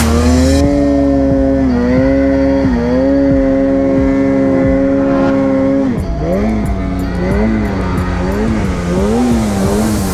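Two-stroke mountain snowmobile engine running hard through deep powder, its pitch steady with a couple of brief dips. From about six seconds in it swings up and down over and over, about three times every two seconds, as the throttle is worked.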